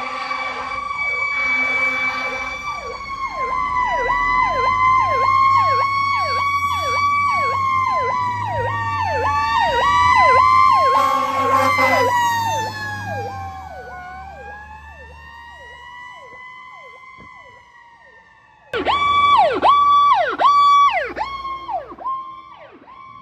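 Fire ladder truck responding with its siren: a slow wail rising and falling, with a second siren yelping fast over it and short horn blasts near the start and about 11 seconds in. The siren fades away after about 14 seconds. Near the end an ambulance siren starts suddenly and yelps loudly.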